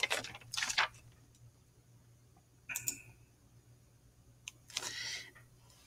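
A few faint, short computer-mouse clicks separated by quiet, over a faint steady hum.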